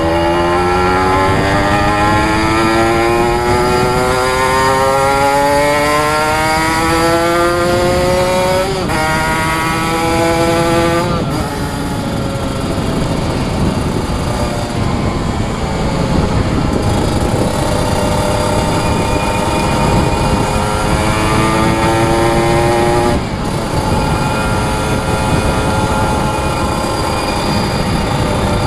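Kawasaki Ninja RR's two-stroke single-cylinder engine accelerating hard, its pitch climbing in long pulls that drop suddenly at gear changes three times: about a third of the way in, again shortly after, and once more later on.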